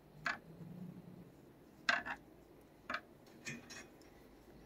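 A back scratcher with a plastic head rubbing and tapping as it strokes a cat's face through cage wire. The sound is about six short scratchy clicks at uneven spacing, and the loudest comes about two seconds in.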